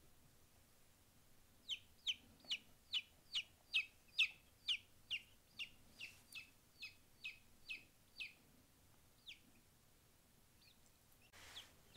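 Baby showgirl silkie chick peeping: a run of about sixteen short, high chirps, each sliding down in pitch, at two to three a second, then one more chirp after a pause. A brief rustle near the end.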